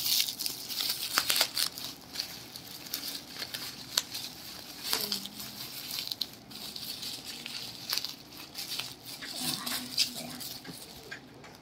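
Black bubble-lined plastic wrapping being crinkled and pulled open by hand: continuous rustling with many sharp crackles of the plastic.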